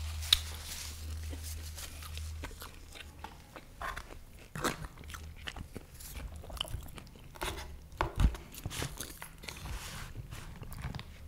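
Close-miked eating sounds: chewing and crunching of food, with scattered sharp clicks and a loud click just after the start.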